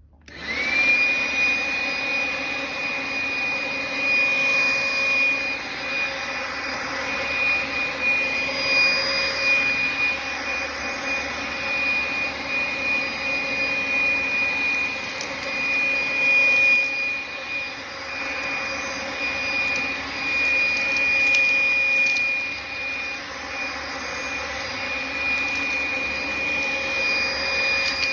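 Makita XLC02ZW 18V cordless compact vacuum switched on, its motor spinning up in a brief rising whine and then running steadily with a high whine over the rush of air. It is sucking up dog hair and flaxseed chips from a hard floor, with a few faint clicks along the way.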